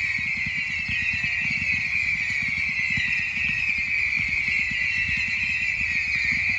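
Consumer firework fountain burning: a steady high-pitched screech over dense low crackling, with no bangs.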